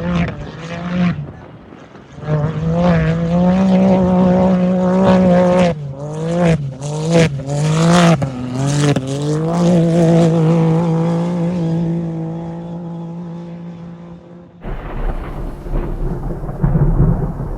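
An off-road race UTV's engine revs up through several quick gear changes, then holds a steady note while it slowly fades away. Near the end it cuts to a steady low noise.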